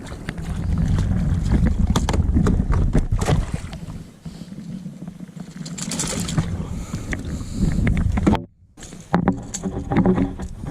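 Sounds of a fishing kayak on the water: a low wind-and-water rumble, with scattered clicks and knocks of gear against the hull. The sound cuts out briefly about eight seconds in.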